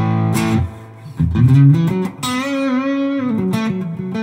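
Fender Roadworn 50s Telecaster played through a Mooer Hustle Drive overdrive without the compressor or booster: a chord, then a bent note held with vibrato, then a few short notes. The tone is very bright, with a little fizz.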